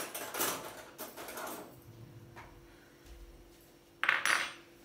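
Tableware handled on a table: a couple of short clinks and rattles in the first two seconds, then a louder, sharp clatter of cutlery set down against a plate near the end.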